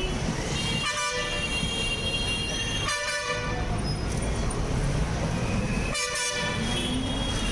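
Vehicle horns honking in busy street traffic: three short blasts, about a second in, at three seconds and at six seconds, over a steady background of traffic noise.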